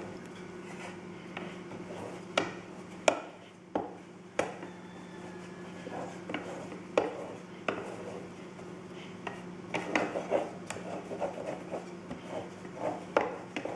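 Thin wooden rolling pin rolling dough on a granite slab, riding over metal guide strips, with scattered sharp clicks and knocks as it rolls and is set down. A low steady hum runs underneath.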